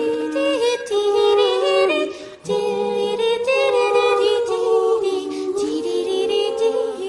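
A cappella singing: several voices in harmony holding slow, sustained notes, with a short break about two and a half seconds in.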